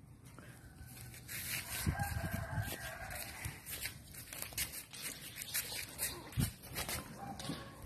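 A rooster crowing once, a held call of about a second and a half starting about a second in, with a shorter call near the end. Scattered clicks, scuffs and soft thumps sound throughout.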